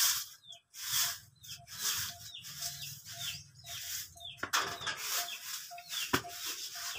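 Long-handled broom sweeping a yard in quick repeated strokes, a scratchy swish about twice a second, with a sharp knock about six seconds in.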